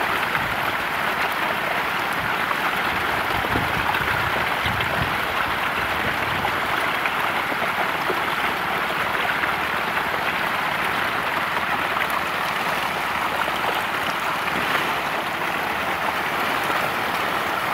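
Hundreds of fish splashing and thrashing together at the water's surface in a feeding frenzy, a steady dense patter of water like heavy rain.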